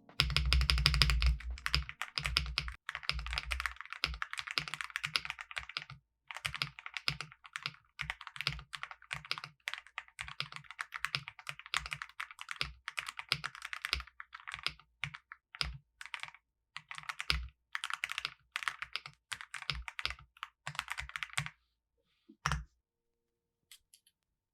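Typing on an unmodded Yunzii AL71 aluminum gasket-mounted mechanical keyboard with Gateron Milky Yellow switches and XVX jello keycaps. The keystrokes come in runs with short pauses between them, loudest in a fast flurry at the start, and stop about 21 seconds in after a last few single strokes.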